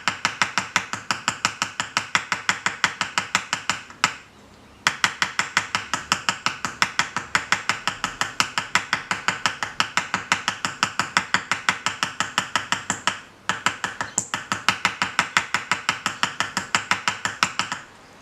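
Ball peen hammer tapping quickly and lightly on the end of a 1 mm metal wire rivet, about six taps a second, spreading it into a domed mushroom head. The tapping stops briefly twice, about four seconds in and again near thirteen seconds.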